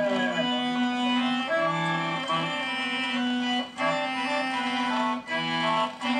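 Accordion playing a tune in sustained, reedy chords, with a few brief breaks between phrases, heard played back through a television speaker.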